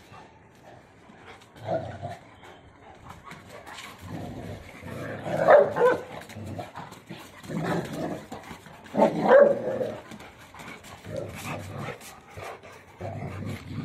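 Dogs barking in rough play between a St Bernard and a Rottweiler, in scattered bouts, the loudest about five and a half and nine seconds in.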